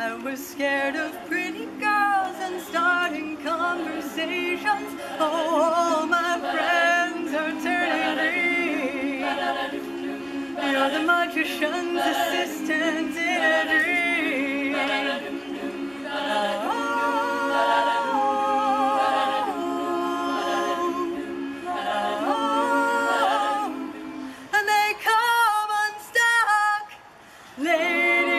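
Women's a cappella group singing in harmony: backing voices hold low sustained notes under a moving melody, with a few long held chords, and a brief pause near the end before the voices come back in.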